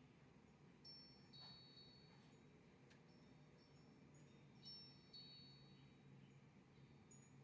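Near silence with a faint steady hum, and twice a light high ringing of two notes, chime-like, about four seconds apart.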